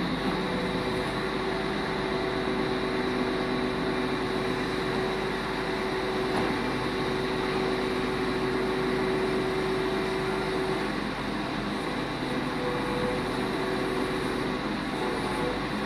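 Engine and hydraulics of an Atlas truck-mounted crane running steadily as it lifts a pallet of concrete blocks with a block grab. A steady whine in the hum drops out about eleven seconds in.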